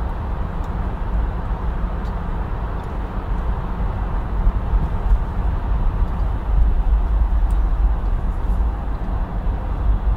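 A car driving through city streets: a steady, deep rumble of engine and tyre noise.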